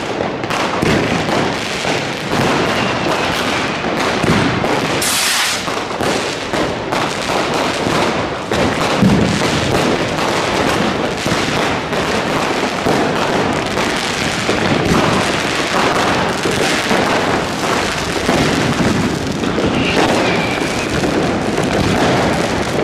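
Continuous New Year's fireworks barrage: many firecrackers and rockets going off at once in a dense, unbroken crackling and banging, with a loud sharp burst about five seconds in.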